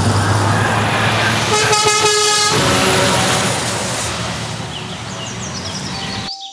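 A semi-truck passes close by with loud engine and tyre noise. About a second and a half in it sounds its horn once, for just under a second. The noise fades a little as the truck moves away, then cuts off suddenly near the end.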